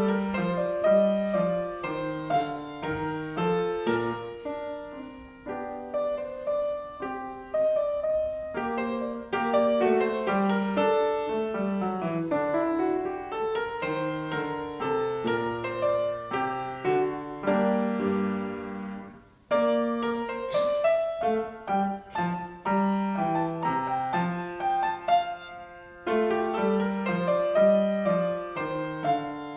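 Grand piano played solo, a piece of many changing notes and chords. The playing breaks off for a brief pause about two-thirds of the way through and then resumes.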